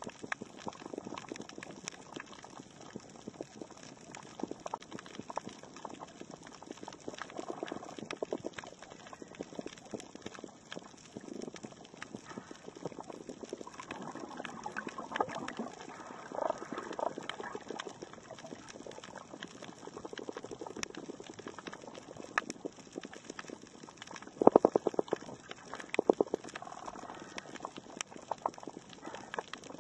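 Underwater coral-reef ambience: a constant crackle of many small clicks, typical of snapping shrimp. Near the end come two loud short bursts of rapid pulsing.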